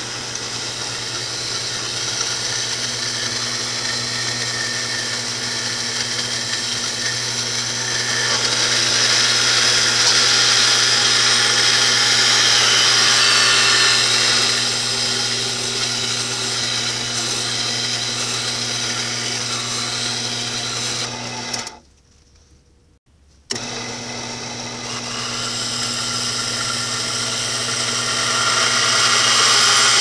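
Horizontal bandsaw running in the vertical position, its blade cutting through square steel tubing fed by hand, over the steady hum of its electric motor. The cutting grows louder for a few seconds partway through. About two-thirds of the way in, the sound drops out for about two seconds, then the same sound resumes.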